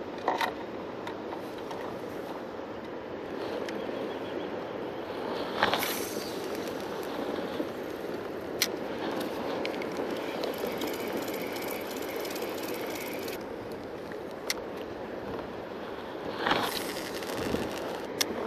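Steady wash of water and wind around a kayak on the water, broken by a few sharp knocks, the loudest about six seconds in and again near the end.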